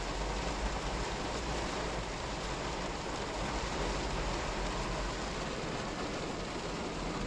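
Heavy rain falling on a car's roof and windows, heard from inside the cabin: a steady hiss with a steady low rumble underneath.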